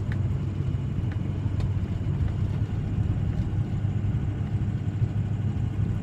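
Steady low drone of a pickup truck's engine and road noise, heard inside the cab while driving.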